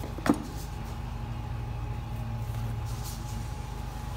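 A single sharp clack about a third of a second in as a caulking gun is set down, then soft rustling of a paper towel wiping glue from gloves, over a steady low hum.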